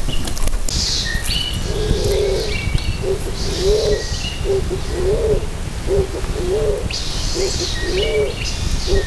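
A dove cooing: a steady series of short, low, arching coos, about one a second, starting a couple of seconds in. A smaller bird's high chirps sound over it now and then, with a low rumble beneath.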